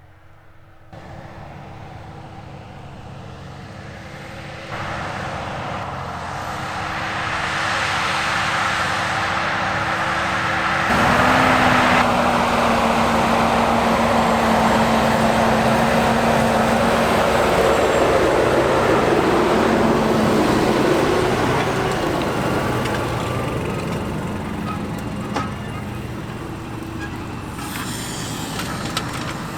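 Fendt 936 tractor running under load while pulling an eight-furrow Lemken plough, its engine growing louder as it comes closer, loudest in the middle and fading away near the end. The engine note steps lower about a third of the way in.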